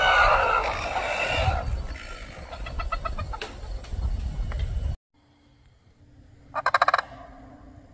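Mallard ducks quacking and wings flapping as a flock takes off, with a quick run of repeated quacks about three seconds in. The sound cuts off abruptly about five seconds in, and near the end a short, rapid pulsed call sounds once.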